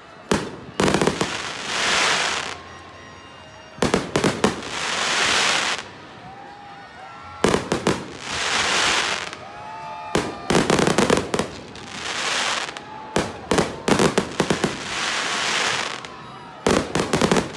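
A fireworks display: aerial shells bursting in quick clusters of sharp bangs, about every three seconds, each cluster followed by about a second of hissing crackle.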